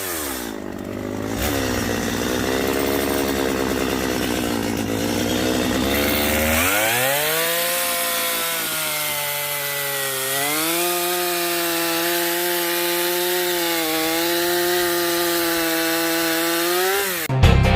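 Chainsaw engine falling to idle, idling for several seconds, then revved up and cutting wood under load, its pitch dipping and recovering as the chain bites. The saw stops shortly before the end.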